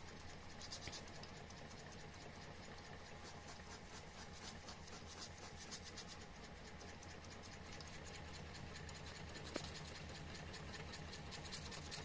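Homemade Stirling engine with a flywheel-driven generator running quietly, its mechanism making a faint, fast, even ticking and scratching over a low hum. It is spinning up toward its top speed.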